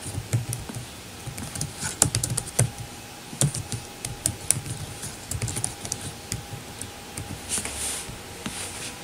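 Typing on a computer keyboard: a run of irregular key clicks, some louder strokes among them.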